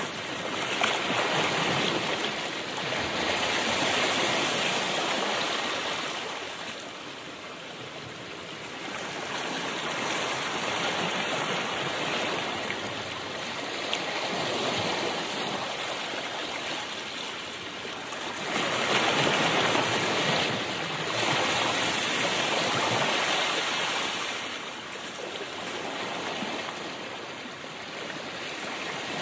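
Wind and road noise from a moving car: a rushing hiss that swells and fades every few seconds.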